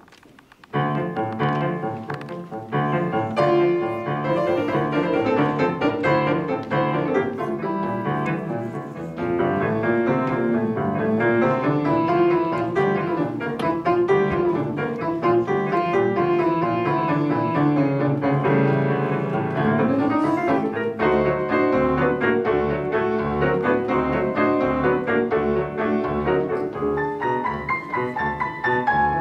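Grand piano played four hands by two players: a lively piece begins about a second in with dense chords and melody. In the last third a low bass note repeats about twice a second beneath the tune.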